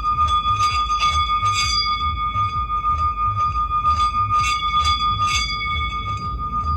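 Meditative healing-sound music: a steady high tone held throughout over a low drone that pulses a few times a second, with short bright strikes scattered through it.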